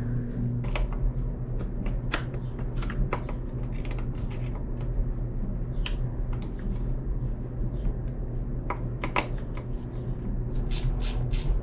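Light clicks and taps of a hex key and mounting hardware as a RockShox rear shock is unbolted from a mountain bike frame, with a quick cluster of clicks near the end. A steady low hum runs underneath.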